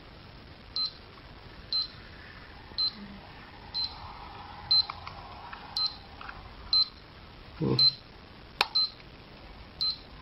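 LCD power-supply tester giving a short high beep about once a second, steadily. Near the end come a dull knock and a sharp click from cable connectors being handled.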